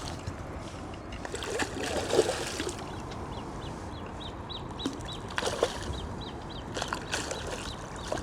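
Water splashing as a hooked carp fights near the surface, with a small bird calling a quick run of short repeated chirps, about three a second, in the middle.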